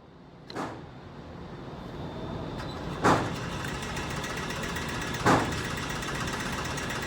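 Three gunshots, fainter than the nearest shots, about half a second, three seconds and five seconds in, over a steady low rumble that slowly grows louder.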